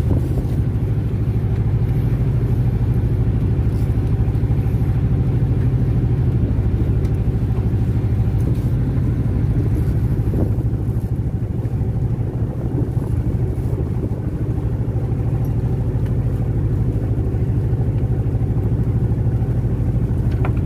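Fishing boat's inboard engine running at a steady pace, a constant low drone.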